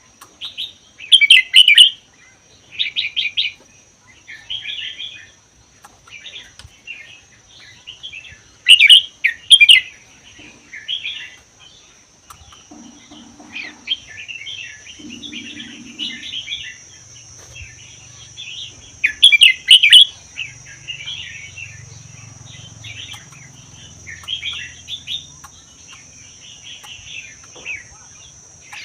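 Red-whiskered bulbul singing: a string of short, rapid song phrases with brief pauses between them. The loudest phrases come about a second in, around nine seconds and around nineteen seconds.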